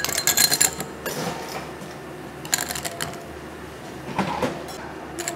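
Ice cubes sliding off a stainless metal scoop into a tall glass, clattering and clinking, most heavily in the first second. A few shorter clinks and knocks of ice and scoop follow.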